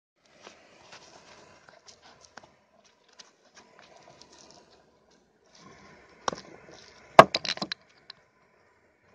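A metal fishing-weight mould being handled and pried open with gloved hands: faint scraping and rustling, then sharp knocks and a quick run of clinks about seven seconds in, as the mould halves come apart on the freshly cast lead weights.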